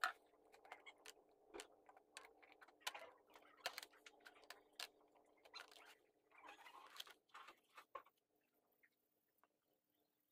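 Small brass binocular parts clicking and clinking against a shallow plastic tray of liquid as they are put in one by one: a run of sharp, light clicks, with a few longer bits of handling noise, dying away about eight seconds in.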